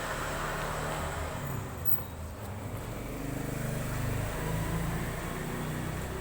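A sick young pigeon breathing with a snoring rattle (ngorok), a sign of respiratory illness, over a low steady hum.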